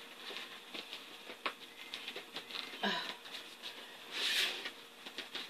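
Vinyl seat cover rustling and crinkling as it is pulled back off the seat foam by hand, with scattered light clicks and taps and a louder rustle about four seconds in.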